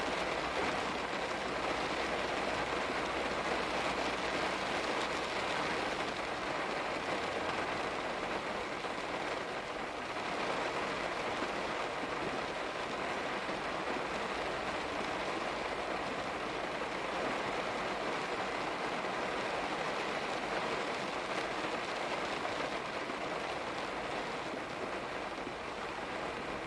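Rain falling steadily: an even, continuous hiss of drops hitting surfaces, with a faint low rumble underneath for the first few seconds.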